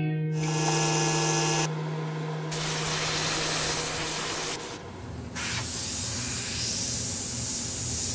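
Airbrush spraying paint, a steady hiss of air that breaks off briefly about five seconds in and then starts again.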